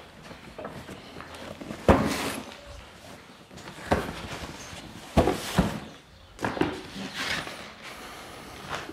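Cardboard boxes being set down one after another on a concrete floor: several dull thuds a second or two apart, with footsteps between.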